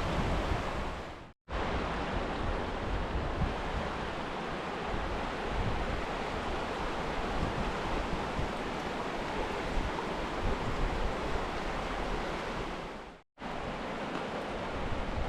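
River water rushing in a steady roar, with wind gusting on the microphone. The sound cuts out abruptly twice, briefly: once about a second and a half in and once near the end.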